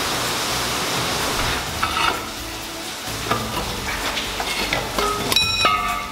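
Metal clanks as a long steel bar is worked against rusted nuts on a truck axle, a few separate knocks over a steady hiss, ending with a short ringing clang near the end. The nuts are seized and will not come off.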